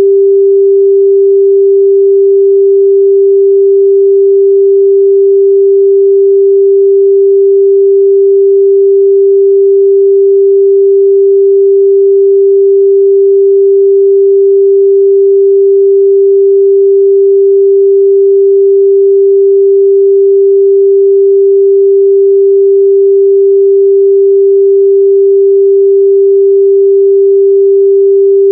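Pure 394 Hz sine-wave test tone, held steady at a constant level without change.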